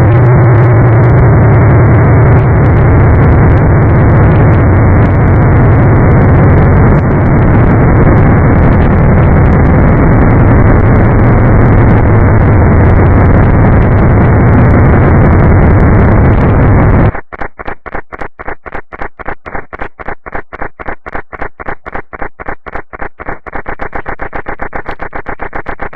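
Loud, heavily distorted digital noise with a deep hum, in the manner of crashed audio. About 17 seconds in it cuts abruptly to a stuttering loop of short repeated fragments, several a second, which speeds up into a faster buzzing stutter near the end.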